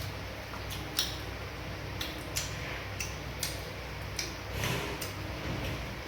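Eating sounds close to the microphone: short wet clicks and smacks from a mouth chewing fufu and banga soup, coming irregularly about once a second over a low steady hum.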